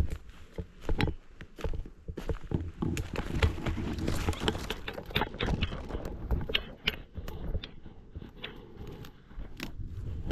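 Footsteps crunching through fallen leaves and twigs, irregular crackling and rustling that grows busiest about three to five seconds in.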